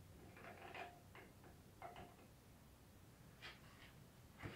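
Near silence: faint room tone with a low hum and a few soft clicks and taps scattered through it.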